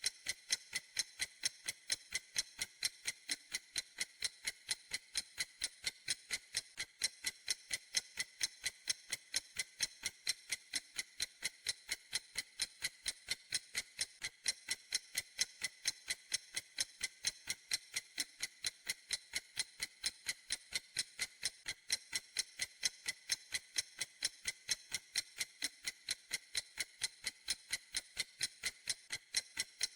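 A clock ticking steadily: light, sharp, high-pitched ticks, several a second, in an even, unbroken rhythm.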